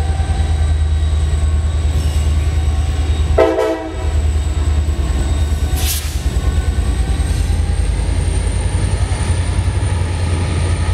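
Norfolk Southern SD40E helper diesel locomotives passing close by, their engines giving a steady low rumble. One short horn blast sounds about three and a half seconds in, and a brief hiss follows around six seconds.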